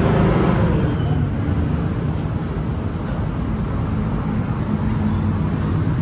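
Steady low engine hum of vehicles with traffic noise, a little louder in the first second and then even.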